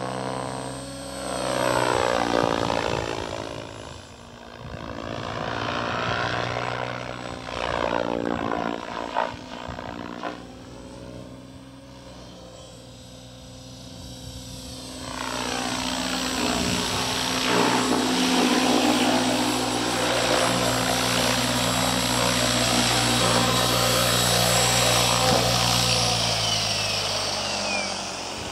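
Raptor E 700 electric RC helicopter with a Scorpion brushless motor flying in passes: the sound of its rotor and motor swells and fades several times as it comes and goes. It is loudest and steadiest through the second half and drops away near the end.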